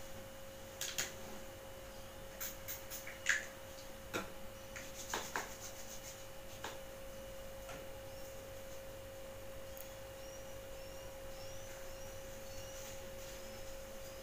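A steady, faint high-pitched whine with a few sharp clicks and rustles over its first five seconds or so, and faint short high chirps in the second half.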